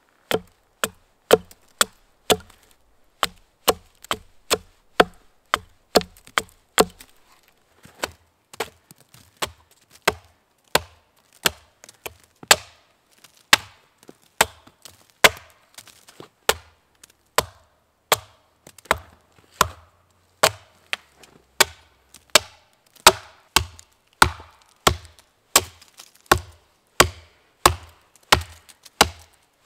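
Small hatchet chopping wood in a steady run of sharp blows, about one and a half a second, with a brief pause about seven seconds in: pointing a wooden stake, then cutting into a dead trunk.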